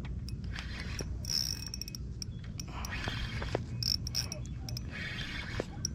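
Fishing reel being cranked to reel in a hooked catfish, its gears clicking and whirring in short runs.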